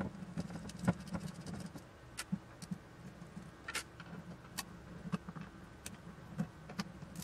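Scattered small clicks and taps of a screwdriver and small metal parts as screws are worked on a metal control-panel housing, over a faint steady low hum.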